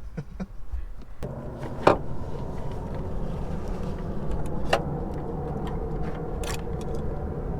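A steady low motor hum starts about a second in, with a few sharp clicks and knocks over it.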